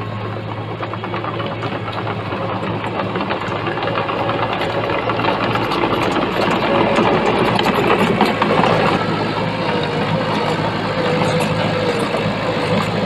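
Diesel engine of earthmoving machinery running with a dense mechanical rattle. It grows louder over the first several seconds, and a thin steady whine joins in the second half.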